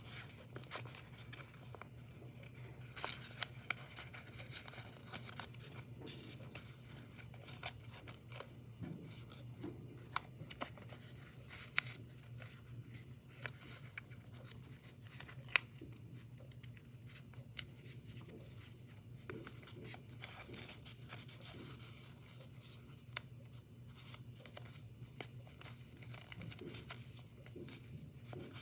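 Origami paper being folded and creased by hand: rustling and crinkling with many short, sharp clicks as folds are pressed flat.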